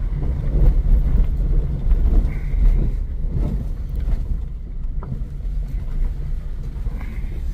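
Car engine and road noise heard from inside the cabin while driving slowly: a steady low rumble with a few faint knocks.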